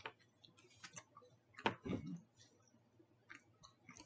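Quaker Chewy granola bars being handled and eaten: a few scattered sharp clicks and crackles, the loudest about one and a half seconds in, with a small cluster near the end.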